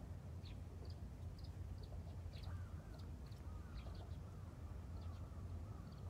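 Birds calling faintly over a low steady rumble. Short high chirps come every so often, and from about two and a half seconds in a wavering call rises and falls again and again.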